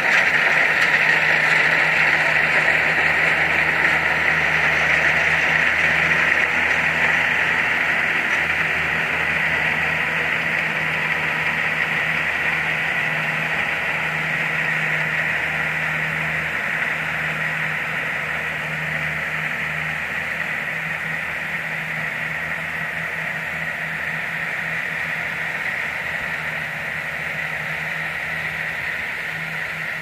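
Kubota DC60 rice combine harvesters running while cutting rice: a steady diesel engine drone with a strong high hum over it. The sound grows gradually fainter as the nearer machine moves away.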